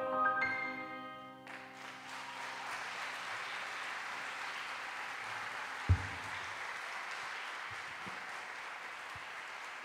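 The band's final chord rings out and stops about a second and a half in, followed by steady audience applause. A single thump comes about six seconds in.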